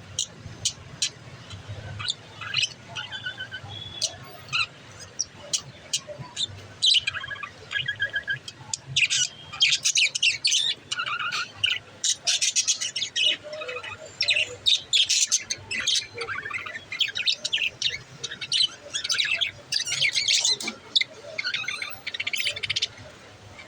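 Pet budgerigars chirping and chattering in quick, high, overlapping calls, busiest through the middle stretch.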